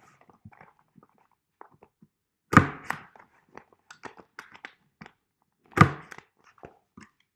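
Desktop hole punch pressed down twice through the tape-edged plastic of a cut bottle: two sharp clunks about three seconds apart, with small clicks and plastic rustling between them.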